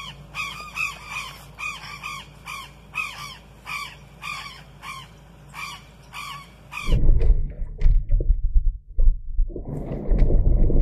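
A flock of jays calling, a rapid string of harsh calls about two or three a second. About seven seconds in the calls cut off and a louder low rumble with irregular knocks takes over.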